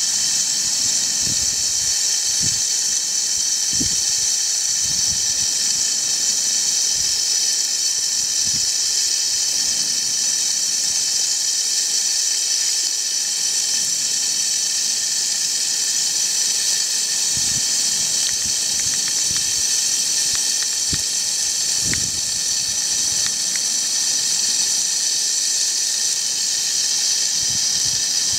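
A shower running, its spray making a steady hiss, with irregular low thuds scattered through it.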